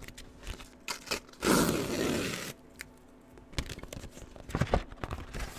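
A courier envelope being torn open: one long rip starting about one and a half seconds in, then scattered rustling and crinkling as it is handled.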